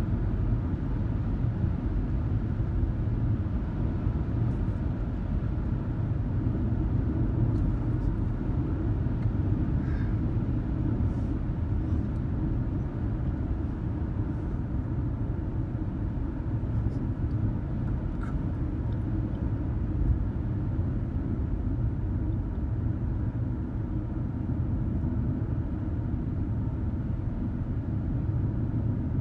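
Steady low rumble of a car cruising at highway speed: tyre and road noise heard from inside the cabin.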